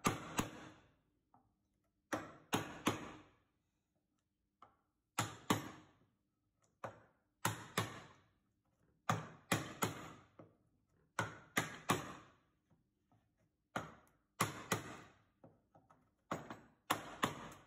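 Wooden mallet striking a mortise chisel into timber, chopping out mortise waste: sharp knocks in pairs, about eight pairs two seconds or so apart, with fainter knocks between as the chisel is levered and reset.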